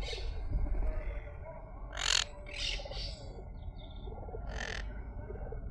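Parrot giving a few short, harsh squawks, the loudest about two seconds in, over a low rumble of handling or wind on the microphone.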